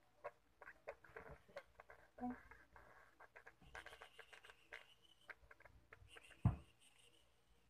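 Faint scattered clicks and scratchy rustling of a cat shifting about in a plastic crate on a towel, with one dull thump about six and a half seconds in.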